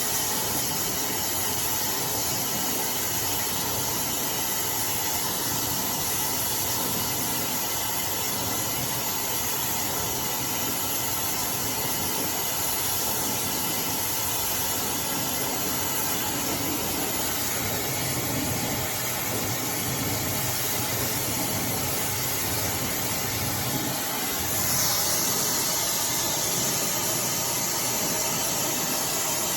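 iDryer AI Pro Style hair dryer blowing steadily while drying hair, a continuous rushing hiss. About 25 seconds in the hiss turns brighter and a little louder.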